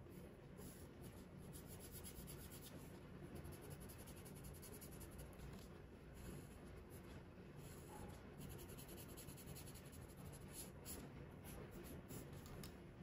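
Faint rustling and scraping of origami paper as it is folded and creased by hand, in many short light strokes.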